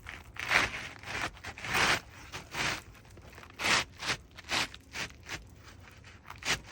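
A new 3-tab asphalt shingle being slid into place under the roof's existing shingles: a run of short, gritty scrapes of shingle on shingle, about one or two a second.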